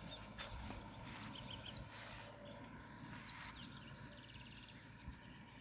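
Faint bird calls: scattered short high chirps and whistles, with a quick trill about four seconds in, over a low steady rumble.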